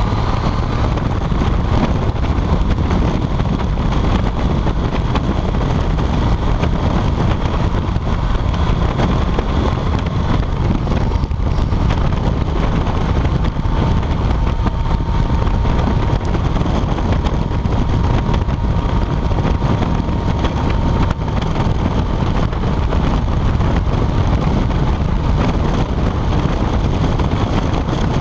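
Motorcycle riding at steady speed, heard mostly as heavy wind buffeting on the camera's microphone, with the engine running underneath. A faint steady whine sits above the noise for a stretch in the middle.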